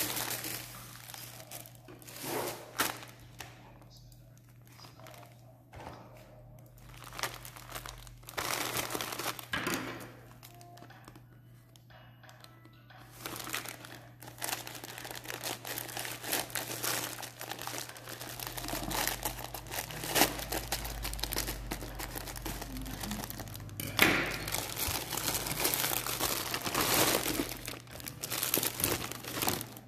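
Plastic packaging crinkling and rustling as a bag of artificial aquarium plants is handled and opened: scattered bursts at first, then almost continuous crinkling from a little before halfway.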